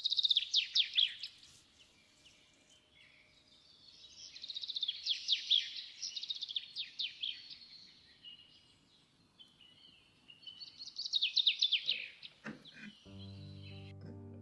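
A songbird singing in three bursts of quick, high, falling notes, with quiet stretches between. Music starts near the end.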